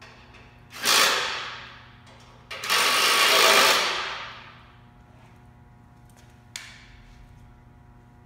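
Cordless drill-driver run in two bursts, the second longer, driving fasteners into the aluminium frame; a short sharp clack about six and a half seconds in.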